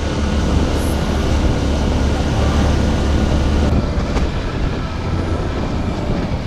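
Motorbike riding noise as picked up by an on-bike camera: an engine running under a steady low rumble of wind over the microphone. The sound changes abruptly about four seconds in.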